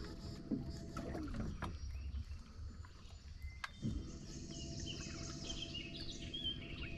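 A boat motor runs at a steady low idle, setting in about four seconds in, with birds chirping above it.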